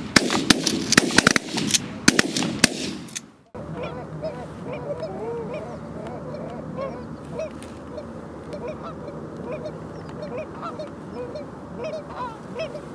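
A rapid volley of shotgun fire from several guns for about three seconds, cutting off suddenly. Then a flock of waterfowl calling, many honks and quacks overlapping over a steady outdoor hiss.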